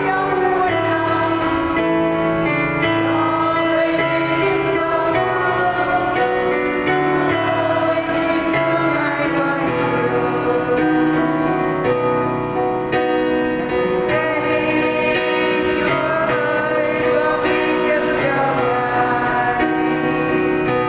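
A Vietnamese Christian hymn: voices singing a slow melody over an instrumental backing track with steady bass notes.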